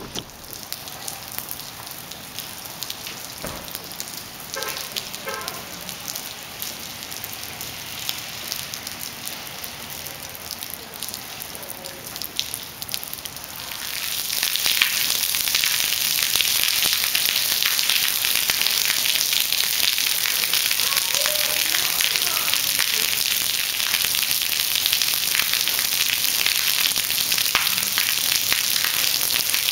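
Heavy rain pouring onto paved ground, a dense steady hiss. It gets suddenly louder about halfway through and stays at that level.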